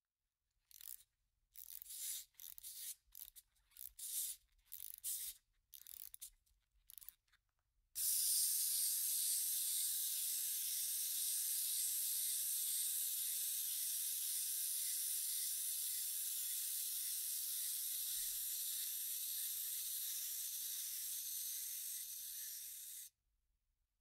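Wind-up toy being wound with about a dozen short, uneven twists of the key, then its spring motor let go and running with a steady high whir for about fifteen seconds before stopping abruptly.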